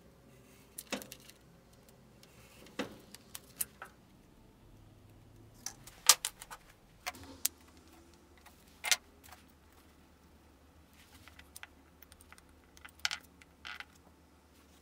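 Irregular light clicks and taps of small hard objects being handled, a dozen or so scattered through, with quiet between them; the loudest come about six and nine seconds in.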